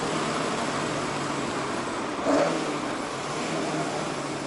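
Toyota AE86's 4A-G four-cylinder engine running steadily while the car drives along, heard from inside the cabin over road noise. A brief louder thump comes about two seconds in.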